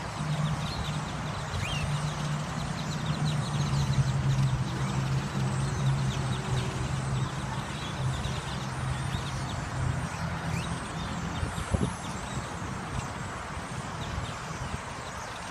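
A steady, low engine hum that fades out about eleven seconds in, over a constant background rush, with faint short high chirps of birds.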